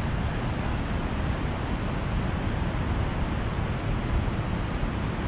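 Steady wind blowing across the microphone: an even, low rushing noise with no tone in it.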